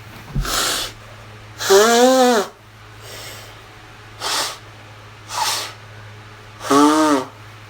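A man with allergies sneezing and snorting through his nose: short noisy blasts of breath, and two longer voiced bursts about two seconds in and near the end.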